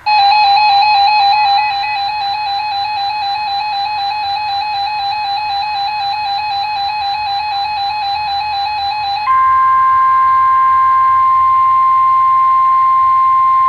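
Weather radio alert tones: a warbling electronic alert beep for about nine seconds, then a switch to the steady single-pitch 1050 Hz Warning Alarm Tone of NOAA Weather Radio that comes before a warning message.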